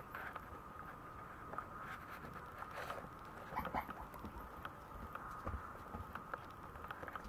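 Maltese puppies' paws and claws pattering and scuffling on a wooden floor in light, scattered taps, over a faint steady hum.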